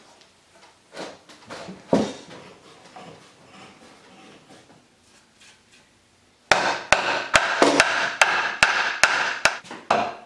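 Repeated hammer blows on wood, a wooden leg being knocked home into its glued mortise: sharp strikes about two to three a second that start abruptly about six and a half seconds in. Before that, only a few quieter knocks of wood being handled.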